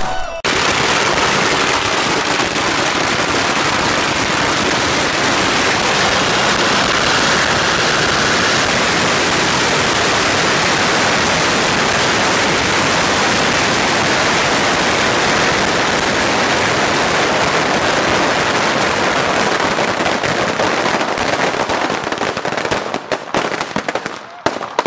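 A string of about 15,000 firecrackers going off in one dense, unbroken crackle that starts right at the beginning. Near the end it thins into a few separate cracks and then stops as the string burns out.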